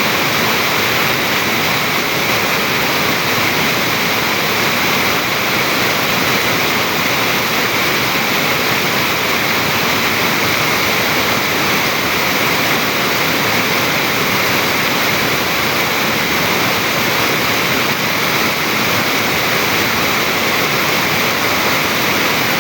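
Stream water rushing and splashing over rock in a steady, unbroken hiss.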